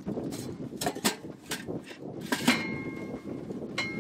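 Stainless steel pot knocking and scraping against the metal box and rack of a Travel Buddy portable oven as it is set inside: a string of sharp metallic clanks, the loudest about two and a half seconds in ringing briefly, and another ringing clank near the end.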